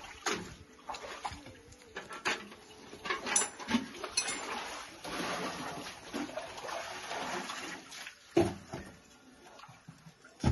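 Hand-digging work in a well shaft: irregular knocks and clanks of tools and metal pans on rock, with stretches of scraping noise between them. The sharpest knock comes about eight seconds in.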